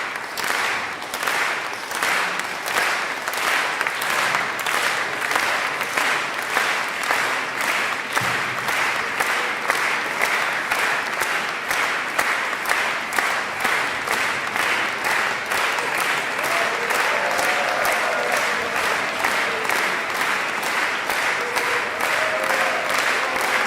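Concert audience applauding in rhythmic unison, clapping together at about two claps a second.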